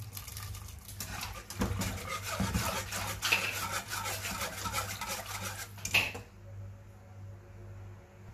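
Metal wire whisk stirring a thickening béchamel sauce in a saucepan, its wires rapidly scraping and clicking against the pot. The whisking ends with a sharp knock about six seconds in.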